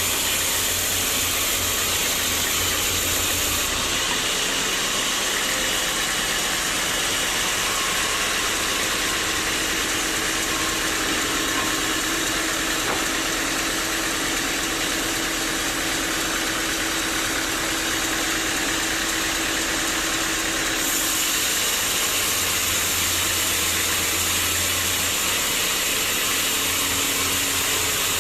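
Sawmill machinery running steadily, a continuous loud mechanical noise. Its low hum drops away about four seconds in and comes back near the end, and a steady tone is held through the middle.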